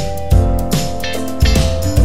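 Background music: guitar and bass notes over a steady beat.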